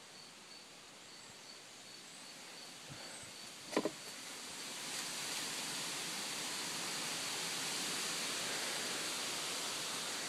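Outdoor ambience: a faint, regular high chirping, a single short sharp knock a little under four seconds in, then a steady rushing hiss that swells from about five seconds in.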